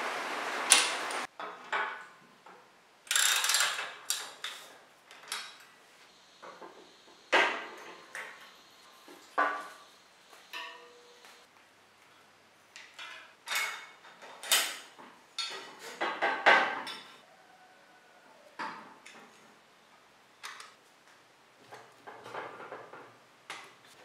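Bicycle parts and hand tools being fitted together: a string of separate metal clinks, clicks and knocks, some with a short ring, with quiet gaps between them. An adjustable wrench on the headset and a front-wheel quick-release skewer are among them.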